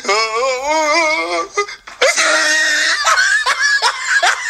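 A woman's drawn-out, wavering vocal cry of distaste, made while grimacing at the taste of a raw vegetable. Background music follows from about two seconds in.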